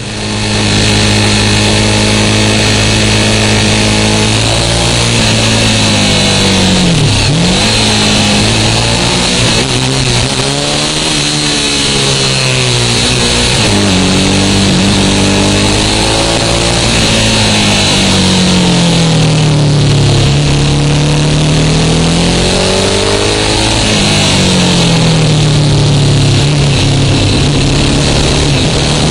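V-twin sportbike engine heard from on board at speed, its revs falling and climbing back again several times, over a steady rush of wind noise.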